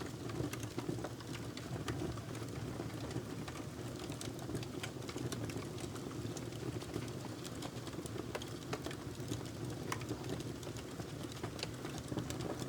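Wood fire burning in a fireplace: a steady low rush of flames with frequent small crackles and pops scattered throughout.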